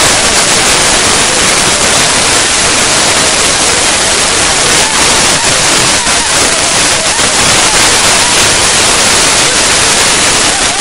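Loud, steady rushing of a river in flood, with faint voices under it.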